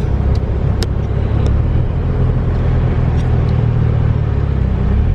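Mitsubishi Lancer Evolution VI Tommi Mäkinen Edition's turbocharged four-cylinder engine running steadily under way, with road rumble, heard from inside the cabin. A few light ticks in the first second and a half.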